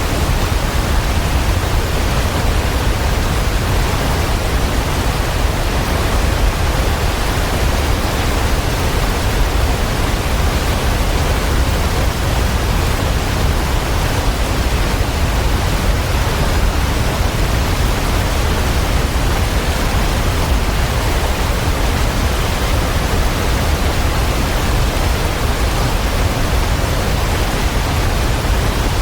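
Waterfall: a steady rush of falling water, even and unbroken, heavy in the low end.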